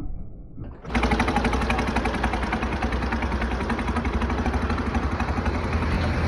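Modified Massey Ferguson 9500 tractor's diesel engine running through a tall straight exhaust stack, a steady rapid beat of firing pulses. It comes in loud about a second in.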